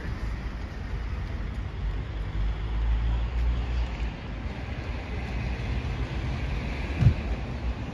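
Street traffic: a car engine running nearby over a steady low rumble, with one short low thump about seven seconds in.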